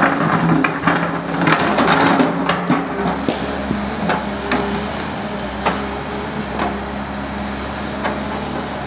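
Hyundai 320LC-9 excavator's diesel engine running steadily while the steel bucket scrapes and knocks against stones, with a clatter of rock knocks in the first three seconds, then a few single knocks as the bucket lifts clear.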